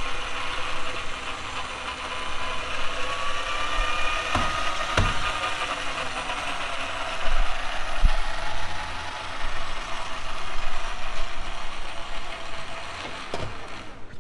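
Steady mechanical whirring with a motor-like tone that slides up and down, broken by a few sharp metal clanks as an engine block hanging on a hoist is fitted to an engine stand.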